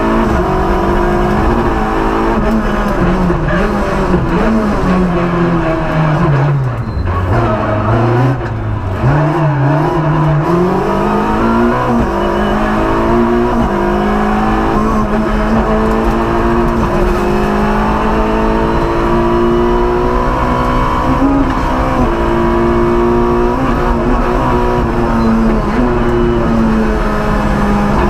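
Peugeot 106 Maxi rally car's four-cylinder engine at full throttle, heard from inside the cabin. Its pitch falls as the car slows for a bend about five to nine seconds in, then climbs again through a run of upshifts, each rise followed by a drop.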